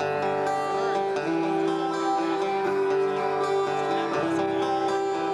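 Instrumental intro on two strummed acoustic guitars, with a harmonica playing long held notes over them.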